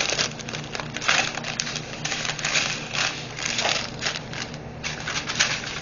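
Small plastic bags of diamond-painting drills being handled: crinkling plastic and the rattle of tiny resin drills, a quick irregular run of clicks and rustles.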